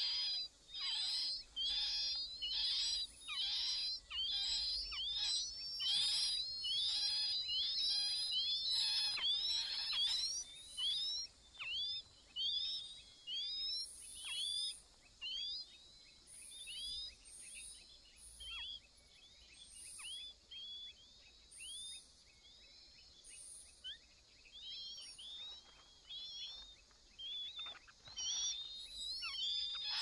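Chinese hwamei nestlings begging for food: a quick run of thin, high cheeps, crowded together for the first ten seconds or so, then thinning to scattered single calls and building again near the end.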